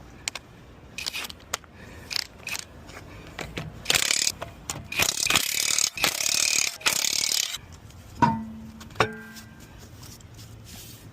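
Impact wrench run in several bursts, with short gaps between them, on a wheel's lug nuts. Near the end come two sharp metal clinks that ring briefly.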